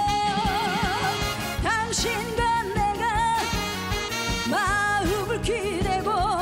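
Trot song: a woman sings with heavy vibrato over a live band with a steady beat.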